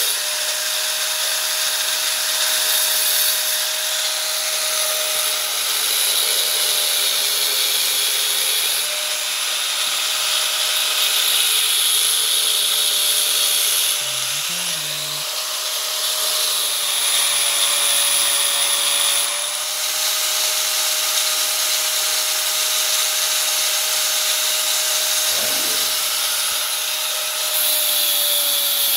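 Angle grinder with a cut-off disc cutting through a ribbed steel bar: a steady motor whine that dips slightly in pitch at times as the disc bites, over a loud hissing grind of the disc on the metal.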